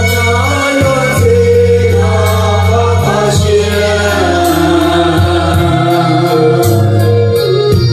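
Music: voices singing together over long held bass notes that change every second or two.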